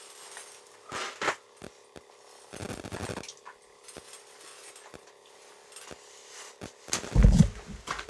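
Scattered light clicks and a few short scraping rustles, then loud bumping and rubbing about seven seconds in as the phone that is recording is picked up and handled.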